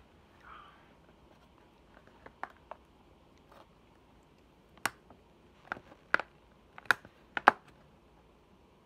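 Irregular sharp clicks and taps of chopsticks and a plastic takeout food tray being handled, a few faint ones about two seconds in and louder, closer-spaced ones in the second half.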